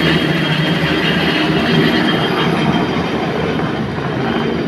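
Light two-bladed helicopter climbing away: loud, steady rotor and engine noise that eases off slightly near the end as it moves off.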